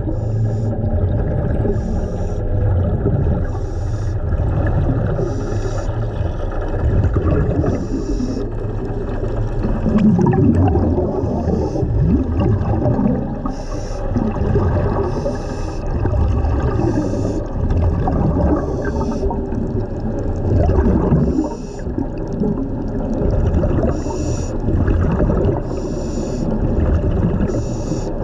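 Underwater bubbling and gurgling, likely from a diver's breathing apparatus, with short hisses recurring every one to three seconds.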